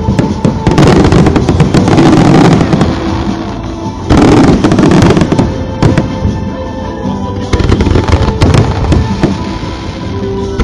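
Aerial fireworks going off in quick succession: rapid cracks and booms. Two dense, loud volleys come about a second in and about four seconds in.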